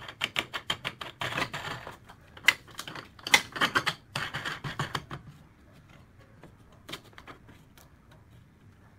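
Rapid metallic clicking, rattling and scraping as an aluminium screen-printing frame is handled in the wing-nut clamps of a printing table, thinning out to a few isolated clicks after about five seconds.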